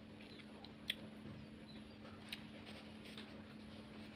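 Faint mouth sounds of eating an orange segment, with a few small sharp clicks, the clearest about a second in, over a steady low hum.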